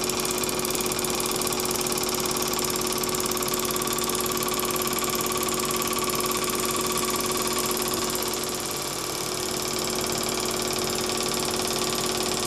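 Small single-cylinder oscillating engine of a walking-stick ornament running steadily on compressed air fed by hose from a compressor: an even hissing whir with a steady hum, easing slightly about two-thirds of the way through.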